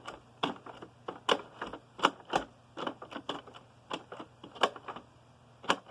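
Irregular plastic clicks and knocks, two or three a second, from a Kenmore Heavy Duty Plus upright vacuum's controls being worked as its carpet-height adjustment is set to auto, with the motor not running.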